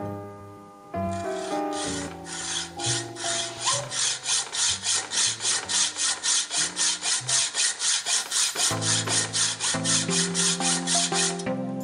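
Hacksaw cutting through a flat metal bar clamped in a bench vise, in fast, even back-and-forth strokes at about four a second. The sawing starts about a second in and stops just before the end. Background music plays throughout.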